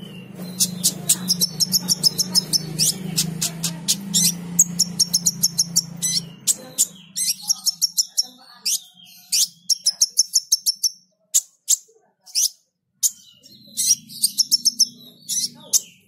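Male Van Hasselt's sunbird (kolibri ninja) singing: rapid strings of sharp, high chips and fast trilled runs, repeated with short pauses. A steady low hum sits underneath for the first six seconds and comes back near the end.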